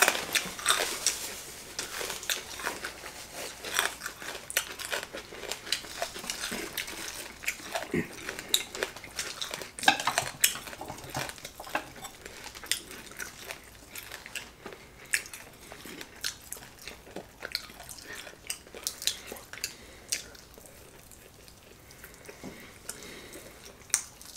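Table eating sounds: chopsticks and utensils clicking against plates in scattered short taps, with chewing and crunching of crispy Vietnamese roast pork (thịt quay).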